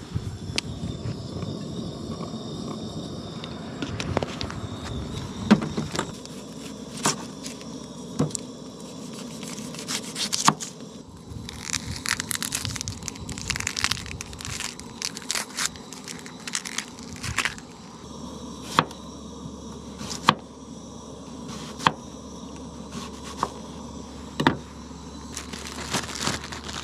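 Hands-on food preparation: irregular sharp clicks, taps and crackles of a plastic water bottle being handled near the start, an onion being cut with a knife on a plastic cutting board through the middle, and a plastic bag crinkling near the end.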